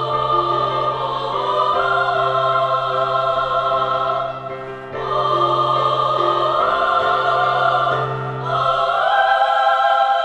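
Background music: a women's chorus singing long held chords over a steady low note, with brief breaks between phrases about four and eight seconds in.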